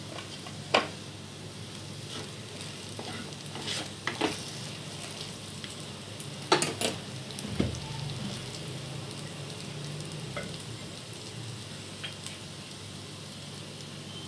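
Mutton pieces with curry leaves and green chillies sizzling as they fry in oil in a kadai. A wooden spatula stirs them, knocking against the pan a few times.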